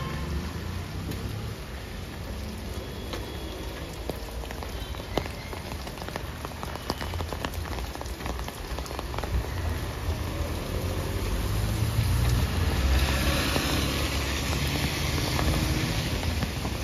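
Steady rain falling on wet pavement, with scattered single drops tapping. It grows heavier about twelve seconds in.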